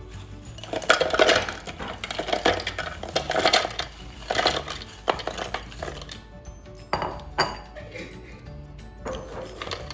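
Oreo cookies clattering into a plastic food processor bowl as they are poured in: a dense run of hard clicks and rattles for several seconds, then a few single clicks as loose pieces are dropped in, over background music.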